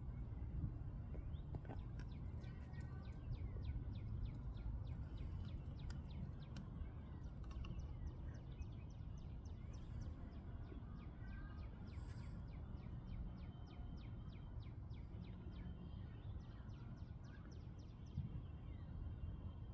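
Outdoor ambience: a steady low rumble with small birds chirping, and through the middle a rapid run of high ticking calls, about three or four a second.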